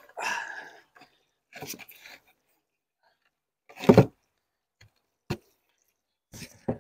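Stone paving slab being slid and set back into place on stone coping: a scraping about half a second in and again near two seconds, a heavy thud about four seconds in as it settles, then a few lighter knocks.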